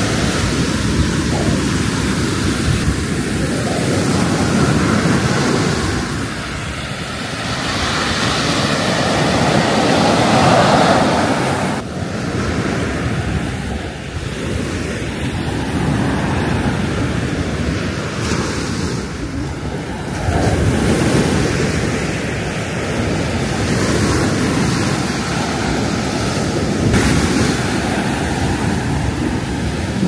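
Surf breaking and washing up on a beach, the sound swelling and easing every several seconds, with wind buffeting the microphone.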